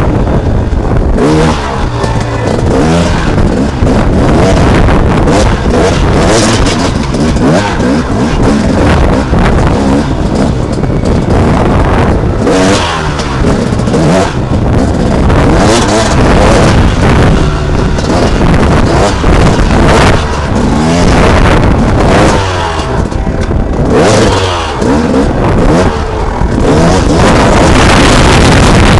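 Enduro dirt bike engine revving hard and dropping back again and again as the rider accelerates and brakes through the course, with rough noise from the track and wind over the helmet-mounted microphone. Very loud throughout.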